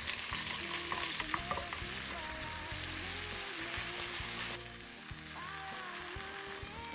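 Food sizzling in hot oil in a frying pan, a steady hiss that drops noticeably about four and a half seconds in, with a few light clicks about a second in.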